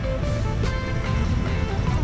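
Music with a melody line playing over the low engine rumble of a pink early-1960s Chevrolet Impala convertible driving past.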